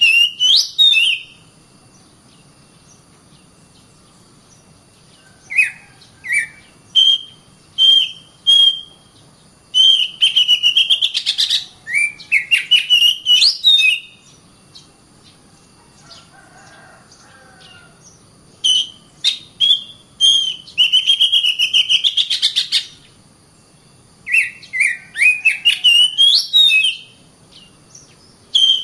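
Oriental magpie-robin (kacer) singing in bursts of loud, varied whistled phrases with rapid scratchy notes and rising slurs, broken by pauses of a few seconds.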